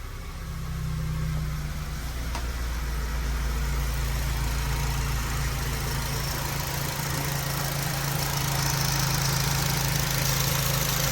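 Honda K20 four-cylinder engine in an FA5 Civic Si idling steadily, with a rushing hiss building up about eight seconds in.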